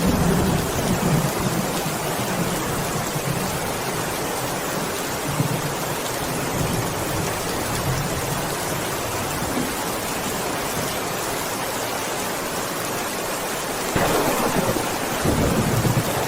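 Heavy rain falling steadily, a dense even hiss of drops, with soft low rumbles swelling under it near the start and again near the end, where it grows louder.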